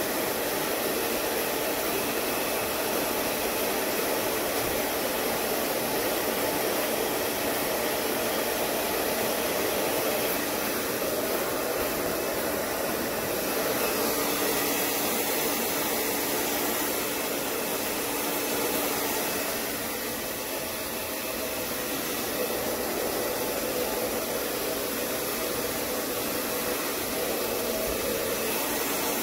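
Handheld hair dryer blowing steadily on a dog's coat, a constant rushing of air that dips slightly about twenty seconds in.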